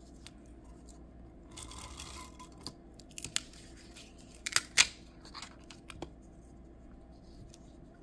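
Kokuyo Dotliner tape runner pressed and drawn across paper, laying down adhesive with short scratchy, crackling rasps: one about a second and a half in, then a louder pair near the middle, with light paper rustling and small clicks between.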